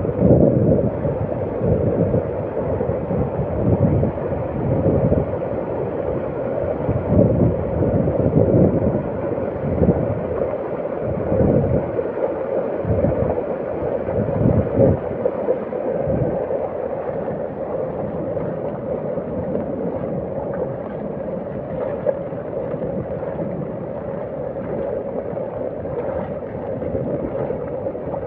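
Floodwater rushing steadily, with gusts of wind buffeting the microphone during the first half.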